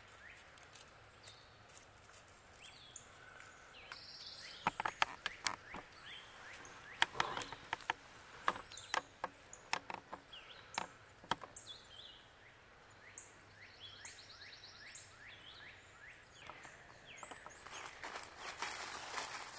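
Footsteps crunching through dry leaf litter, with a string of sharp snaps and cracks of twigs between about five and twelve seconds in. After that, birds call with many short, repeated falling notes.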